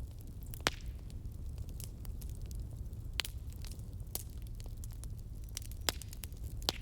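Campfire burning: a steady low rumble of the flames, with sharp crackles and pops scattered irregularly through it. The loudest pop comes a little under a second in.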